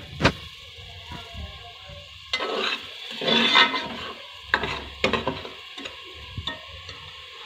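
Steel ladle scraping and knocking against the inside of an aluminium pressure cooker as a masala paste is stirred and sautéed in oil, with a low sizzle underneath. A sharp knock comes just after the start, two longer scrapes follow a little past halfway through the first half, then a few lighter clicks.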